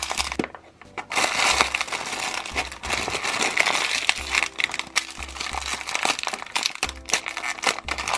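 Packaging crinkling and rustling as a Snapsies mystery toy pack is unwrapped by hand, with many small crackles and clicks throughout.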